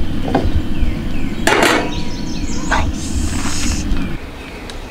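Metal frying pan handled and set down on the steel grate of a two-burner propane camp stove: a clank about one and a half seconds in and a couple of lighter knocks. Birds chirp throughout.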